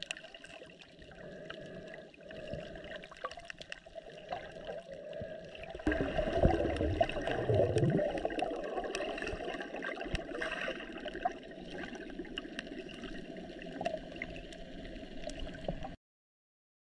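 Underwater sound picked up by a camera below the surface: muffled sloshing and gurgling of water with scattered small clicks. It gets louder and fuller, with low rumbles, from about six seconds in, then cuts to silence near the end.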